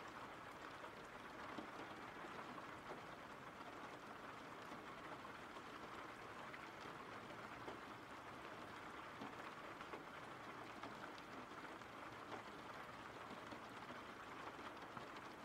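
Faint, steady rain: an even hiss with scattered small drop ticks.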